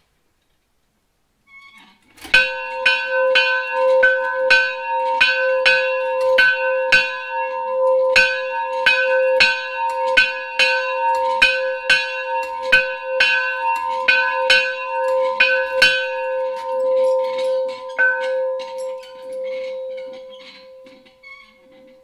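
A large bell, about 20 inches across and hung from a chain, struck over and over about twice a second, starting some two seconds in. It rings one deep note with higher overtones. The strikes stop after about fourteen seconds, one last strike comes near 18 s, and the ring then dies away.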